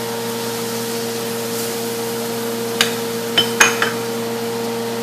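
A few sharp clinks of kitchenware: one a little past halfway, then three or four close together soon after, over a steady electric hum of a kitchen motor.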